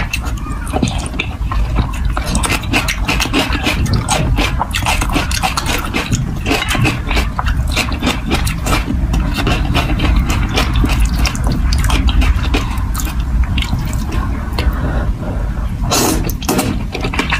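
Close-miked wet chewing of a mouthful of thick noodles in spicy sauce: a dense, continuous run of sticky mouth clicks and smacks. About sixteen seconds in, a louder slurp as the next load of noodles is drawn into the mouth.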